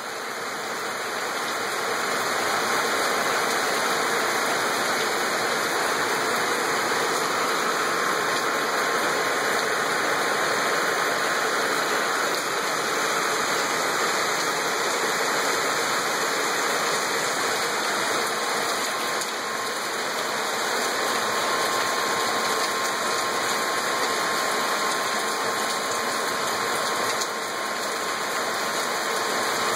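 Heavy rain pouring down in a steady rush, swelling over the first couple of seconds and then holding even.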